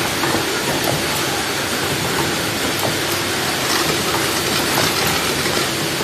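Automatic carton packing machine running: a steady mechanical din with frequent irregular clicks and clacks over a faint steady hum.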